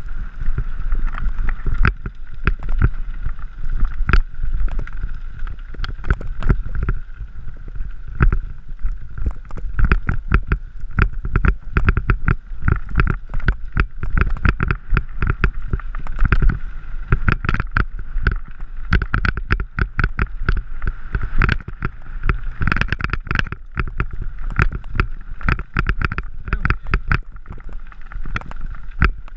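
Mountain bike rolling over a rocky gravel trail: a constant, irregular clatter of knocks and rattles as the bike shakes over loose stones, over low wind rumble on the microphone.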